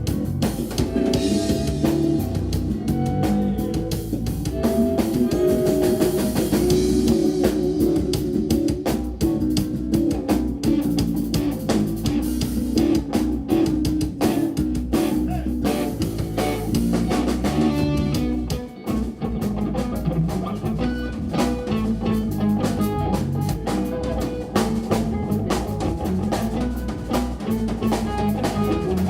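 Instrumental rock-fusion trio playing live: electric guitar over bass and drum kit. The band breaks briefly about two-thirds of the way through, then plays on.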